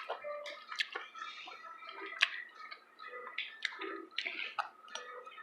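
Eating utensils tapping and clinking against bowls and dishes: a scattered run of light clicks, some with a short ring.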